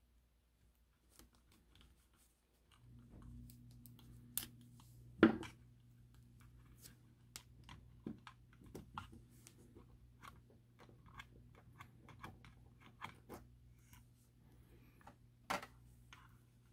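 Tweezers and small plastic and metal parts clicking and ticking as a model locomotive's Ringfield (pancake) motor is worked loose and lifted out of its truck. The loudest is a sharp click about five seconds in. A low steady hum comes on about three seconds in.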